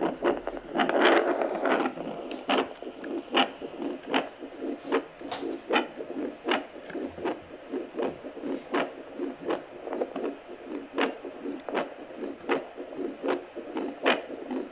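Handheld fetal Doppler picking up heartbeat sounds through a pregnant belly: a steady, rhythmic pulsing with a whooshing hiss behind it. A louder rush of noise comes about a second in.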